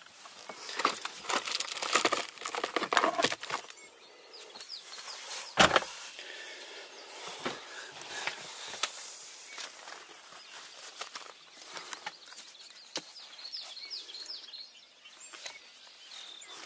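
Hunting gear being handled and packed up, with rustling and clicking and footsteps on the woodland floor, densest early on. One heavy thump comes just before six seconds in.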